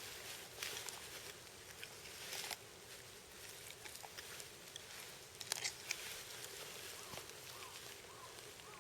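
Faint scrapes, soft swishes and small clicks of a hunting knife cutting the tenderloin from a deer carcass.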